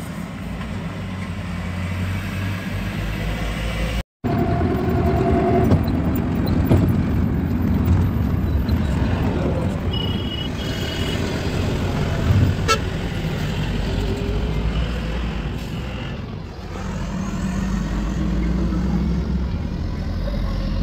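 Road and engine noise of a moving car in traffic, heard from inside the cabin, with short horn toots about six and ten seconds in. The sound drops out for an instant near four seconds.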